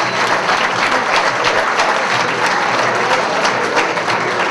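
Audience applauding, a dense steady clapping that holds throughout.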